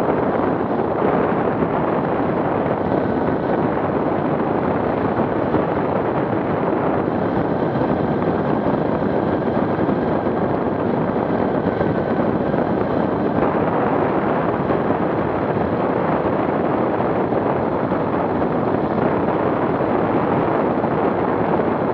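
Steady wind rush and road noise on an action camera's microphone, riding at an even speed.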